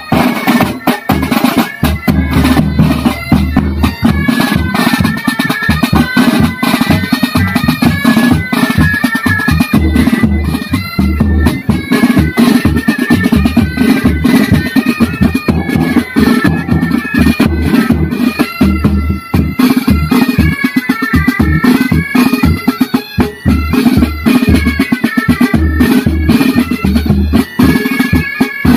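Military pipe band playing: Highland bagpipes carry a stepping melody over their steady drones, with snare drums rattling and a bass drum beating.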